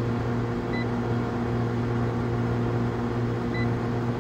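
Steady electrical hum from a running HVAC outdoor unit, with two short high beeps from a Fieldpiece SC660 clamp meter as its buttons are pressed, the first under a second in and the second near the end.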